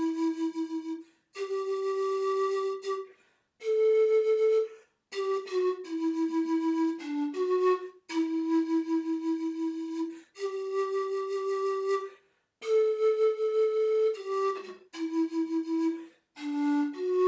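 Background music: a slow solo flute melody of held notes in short phrases, with brief pauses between them.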